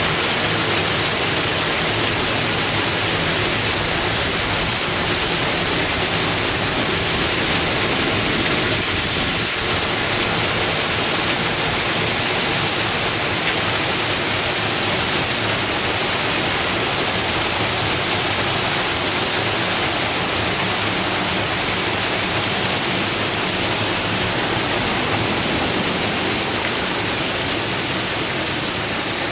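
Small waterfall pouring down a rock face and splashing into the sea, a steady rush of falling water.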